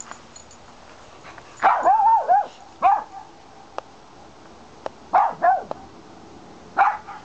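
Cavalier King Charles spaniel barking in high, short barks: a quick run of three or four about two seconds in, then single barks and a pair, seven or so in all.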